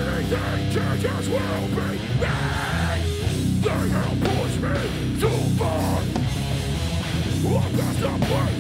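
Heavy metal band playing live: electric bass guitar and drums, with bending guitar notes, in a loud, dense passage.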